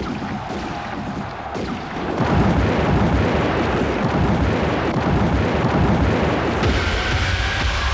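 A steady low, noisy rumble. About six and a half seconds in, electronic music tones come in over it.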